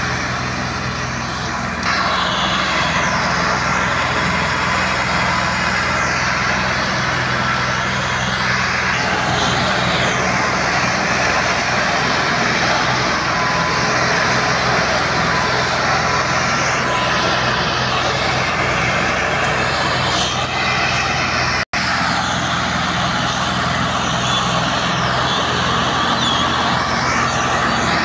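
Diesel farm tractor engines, a Massey Ferguson 385 and an orange Fiat, running hard and steady under heavy load as they haul a loaded sugarcane trolley through soft field soil. There is a split-second break in the sound about three-quarters of the way through.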